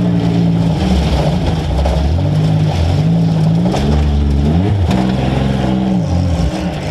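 Demolition derby car's engine revving up and down as the car drives, heard close up from the car itself. The revs climb steeply about two-thirds of the way in, then drop suddenly with a sharp knock.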